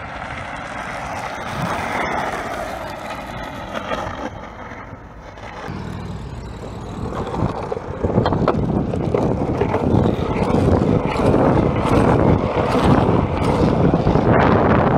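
Longboard wheels rolling over asphalt, a steady rolling noise that grows louder and rougher about halfway through, with many small knocks.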